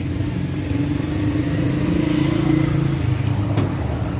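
An engine running steadily: a low, even hum, with a single click about three and a half seconds in.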